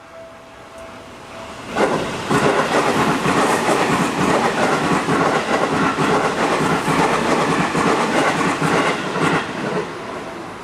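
Seibu Shinjuku Line electric train passing over a level crossing. It arrives suddenly about two seconds in with a loud rumble and rapid clickety-clack of wheels over the rail joints, lasting about eight seconds before dropping away near the end.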